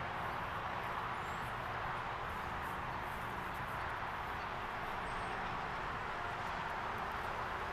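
Steady outdoor background noise with no single clear source, with two faint short high chirps about a second and five seconds in.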